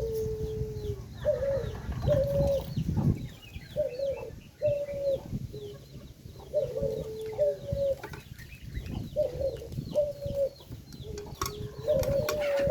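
Domestic chickens calling: short pitched calls, mostly in pairs, every second or two, with faint high chirping from small birds and a low rumble underneath.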